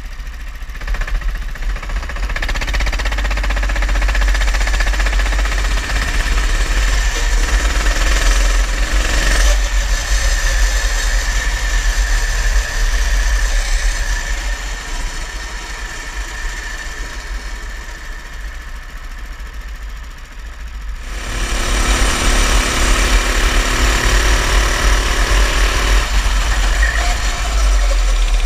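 Go-kart engine running continuously under a deep rumble, easing off in the middle and growing louder again about three quarters of the way through.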